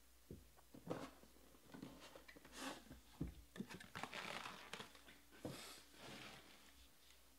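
Soft rustling and a scattering of light taps and knocks from cardboard trading-card boxes and their loose plastic shrink-wrap being handled and set down on a table.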